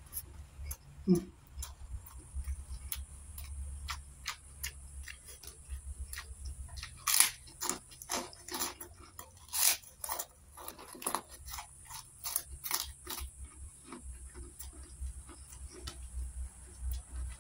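Close-miked eating by hand: crunchy food being bitten and chewed, with many sharp crunches that come thickest and loudest in the middle. There is also one short, low, rising sound about a second in.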